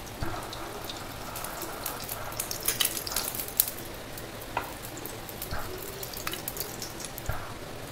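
Melted ghee sizzling and crackling as it is spooned onto a hot non-stick pan around small cooking pancakes. The crackling is densest a couple of seconds in, with a few light spoon taps.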